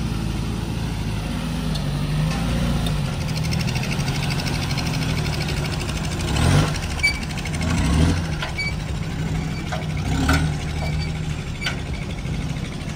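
A 4x4's engine running steadily while the vehicle drives, with a few brief louder swells around the middle.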